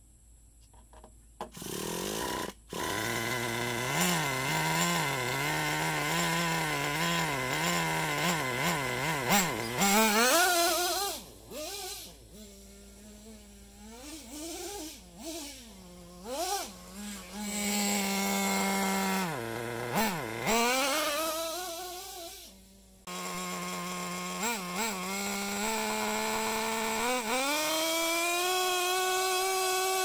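Traxxas Slash Nitro RC truck's small two-stroke nitro engine, breathing through an aluminum R.O.A.R. resonator tuned pipe. It catches about two seconds in, idles with a steady buzz, then revs up and down over and over as the truck drives. It breaks off suddenly, comes back at idle, and near the end climbs to a high, held rev for a burnout.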